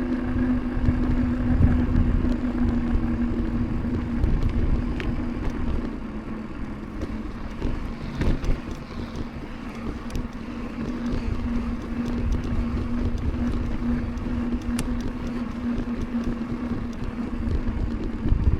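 Mountain bike's knobby tyres humming steadily on pavement while riding, with wind rumbling on the microphone and a few light clicks and rattles from the bike.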